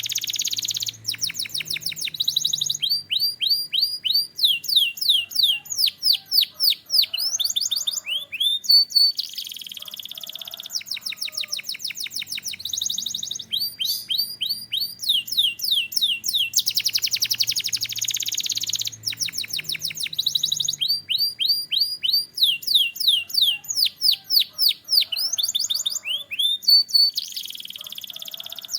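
Canary singing a long song of rapid trills: runs of quick downward-sweeping whistled notes at changing speeds, broken by buzzy rolls. The same sequence of phrases comes round again about halfway through.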